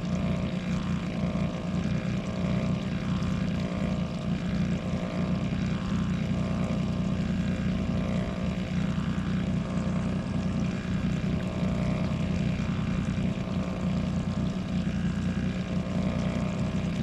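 40 hp outboard motor running steadily at trolling speed, a constant even hum.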